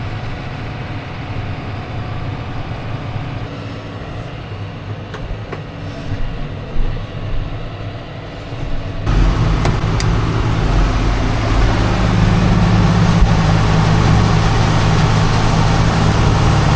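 Heavy farm vehicle engine running steadily. About nine seconds in the sound turns abruptly louder, with a strong low engine hum.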